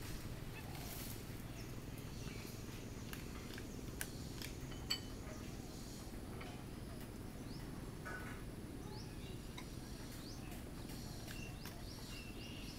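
Outdoor ambience: a steady low rumble with scattered soft clicks, one sharper click about five seconds in, and faint short high bird chirps toward the end.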